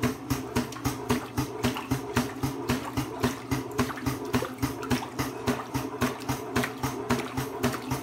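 Small electric motor driving a wave-maker paddle in a model wave tank, run at 4 volts and 3 amps. It hums steadily with a regular knock about three times a second, and the water sloshes as waves build.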